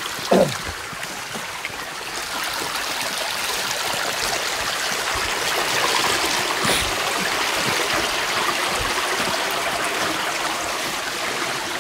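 Steady rushing of a mountain waterfall and its stream, growing a little louder midway. There is a brief loud sound at the very start and a single knock about seven seconds in.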